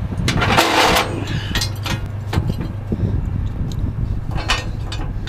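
Yellow wheel tie-down strap on a car hauler being pulled and fed into its ratchet, a scraping rush in the first second followed by a series of sharp metal clicks and clanks, over a steady low hum.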